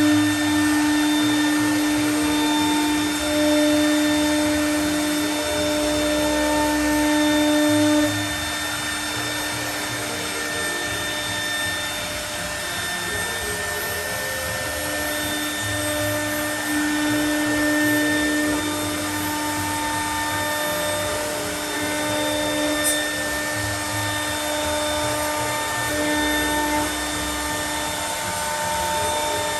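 CNC router spindle running and milling aluminium composite panel: a steady whine over a rushing noise, louder for about the first eight seconds, then quieter and even.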